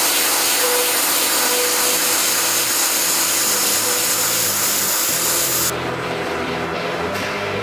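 Woodworking CNC router running, a loud steady hiss with a faint whine under it. The high part of the hiss cuts off suddenly near the end.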